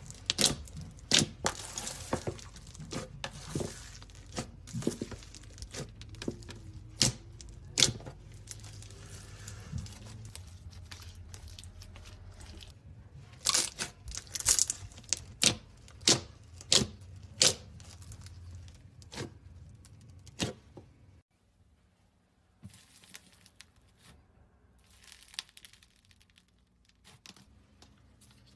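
Slime being squeezed and stretched by hand, with a run of sharp pops and crackles. About 21 seconds in, the sound cuts to a much quieter stretch of softer crackling.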